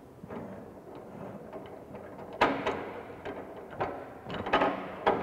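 Metal clanks and knocks of a steel pipe and a yoke pipe vise as the pipe is clamped, the vise's screw handle turned down on it. A sharp knock about halfway through, then several more near the end.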